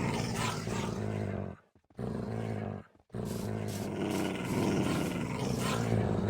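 Low, rough animal calls in three long stretches with short silent breaks between them, the last the longest.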